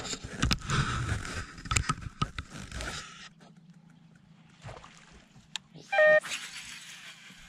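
Wind buffeting the microphone over water, with knocks and lapping against a small boat, which cuts off abruptly about three seconds in. After that a faint low hum, and about six seconds in a brief loud high tone.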